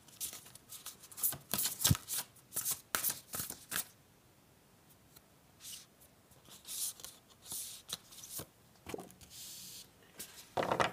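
Oracle cards being shuffled by hand: quick, irregular papery rustles and flicks, dense for the first few seconds and then sparser, with a short sliding hiss near the end as a card is drawn out.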